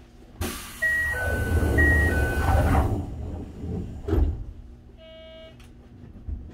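Pneumatic sliding passenger doors of a Toei 5300 series train car working at a station stop: a loud air hiss, a two-note door chime played twice, and a thud near the middle as the doors come to rest.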